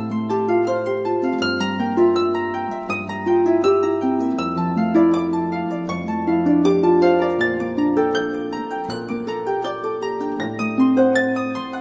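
Instrumental theme music: a quick, continuous run of plucked notes that ring and fade, over slow held bass notes.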